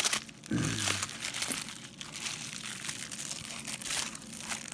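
Packaging being torn open and crinkled by hand, with rustling, a low thump about half a second in and scattered small clicks.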